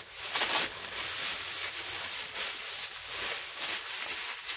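Tissue paper and bubble-wrap packaging rustling and crinkling as it is handled and unwrapped by hand, a continuous crackly rustle.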